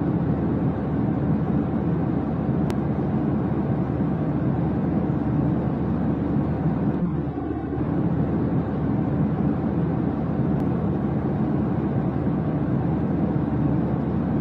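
Steady low rumble of jet airliner cabin noise in cruise, even and unbroken.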